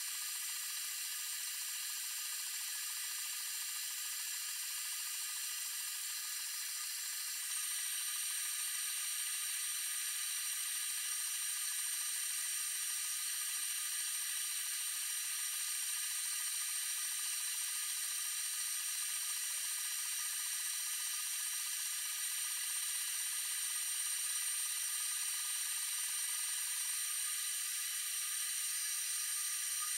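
Flux Beamo 30 W CO2 desktop laser cutter at work engraving and cutting wood, its sound played at fast-forward speed: a steady high whine and hiss with several held tones. It steps slightly louder about seven seconds in.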